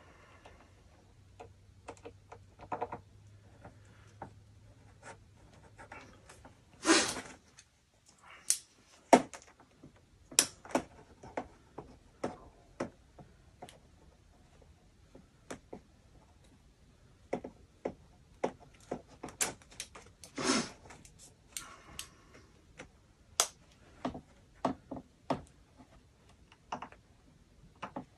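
Irregular small clicks, taps and rubbing as hands work the end of a flexible drain-cleaning shaft and its metal fittings, with a louder brief scrape about seven seconds in.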